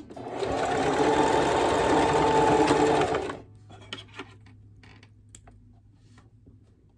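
Home sewing machine stitching through fabric in one continuous run of about three seconds, then stopping abruptly. A few light clicks follow.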